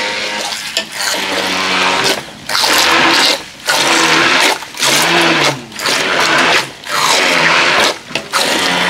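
Handheld immersion blender puréeing boiled tomatoes and vegetables in a metal pot for salsa, its motor whirring loudly in a series of short bursts with brief stops about every second, the pitch shifting as the blade churns through the chunks.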